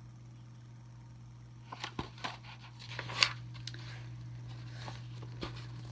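Paper pages of a picture book being handled and turned: a short run of crinkles and clicks about two to three and a half seconds in, the loudest near the middle, with a couple of light ticks later, over a steady low hum.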